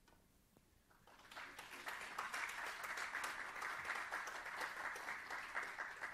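Audience applause, many hands clapping together, starting about a second in and carrying on steadily.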